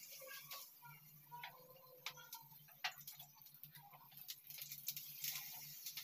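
Batter-coated pumpkin flowers frying in shallow oil on a flat pan: faint, scattered crackles and ticks of spitting oil over a low steady hum. The sizzle grows a little louder about five seconds in, as another fritter goes into the pan.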